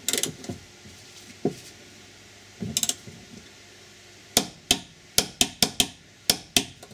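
Torque wrench clicking on an ISOFIX bracket bolt being tightened to 30 Nm. A couple of short metallic clatters come first, then about eight sharp ratchet clicks in quick succession, roughly three or four a second, over the last couple of seconds.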